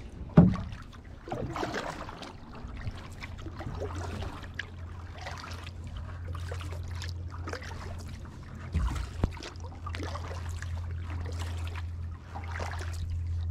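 A canoe being paddled: water swirls and drips off the paddle at about one stroke a second over a steady low rumble. A sharp knock comes about half a second in.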